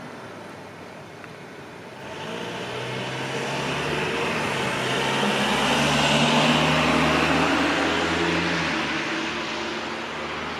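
Electric train on the Minobu Line running along the track, its rumble and low motor hum swelling from about two seconds in, loudest around six to seven seconds, then easing off.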